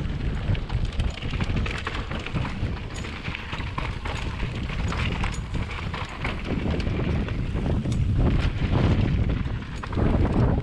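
Action-camera sound of a GT Force mountain bike descending a rocky dirt trail: wind buffeting the microphone, with tyres rolling over dirt and gravel and the bike rattling and clicking over bumps.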